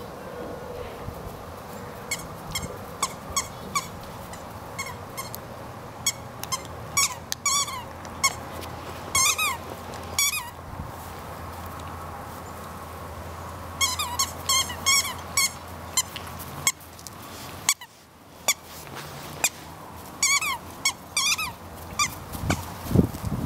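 A dog's squeaky squirrel toy squeaking as the dog chews it: short, high squeaks several to a second, coming in clusters with pauses between.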